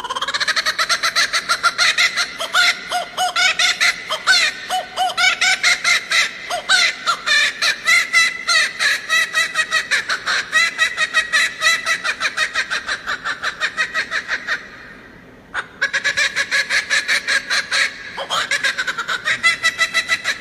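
Male laughing kookaburra giving its full laughing call: a long, loud run of rapid cackling hoots at about five a second. It breaks off for about a second about three-quarters of the way through, then starts up again.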